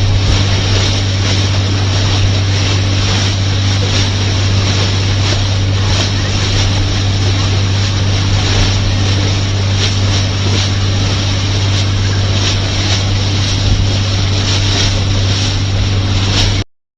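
Longtail boat engine running at a steady pitch, with water rushing past the hull and wind buffeting the microphone; it cuts off suddenly near the end.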